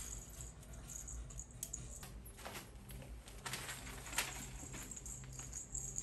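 Pet cockatiels and parakeets moving about on a wire cage: scattered light clicks and rattles of feet and beaks on the wire and plastic toys, with a few short high-pitched sounds near the start and end, over a faint low hum.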